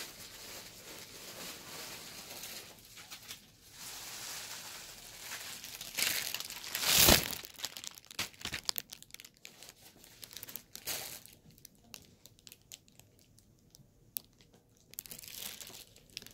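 Plastic wrapping on a bunch of artificial flowers crinkling as it is handled close to the microphone, with a loud rustle about seven seconds in and scattered sharp crackles after.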